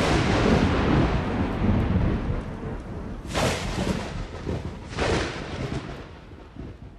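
Thunder: a loud rolling rumble, broken by two more sharp cracks about three and five seconds in, then dying away.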